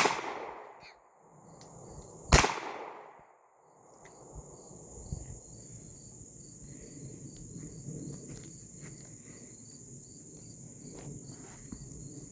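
Two shots from a Kel-Tec P-3AT .380 pocket pistol, about two seconds apart, each a sharp crack with a short fading echo. After that, insects chirping steadily in the background.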